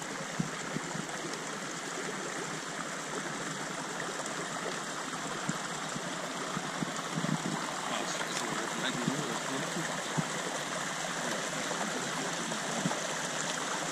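Mountain creek flowing over rocks: a steady rushing wash of water.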